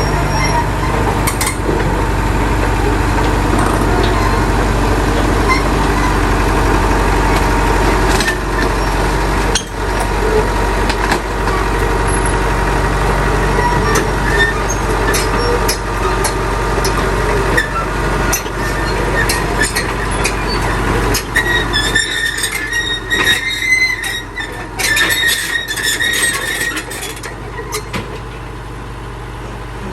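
Heavy diesel earthmoving machinery running with a steady deep engine drone. A little over twenty seconds in, the drone drops and several seconds of high metallic squeals and clanks follow.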